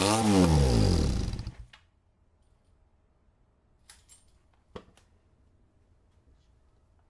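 Honda CB400D Super Hawk III's parallel-twin engine, nearly straight-piped with its mufflers removed, blipped once and then stopping about a second and a half in. Near silence follows, with a couple of light clicks.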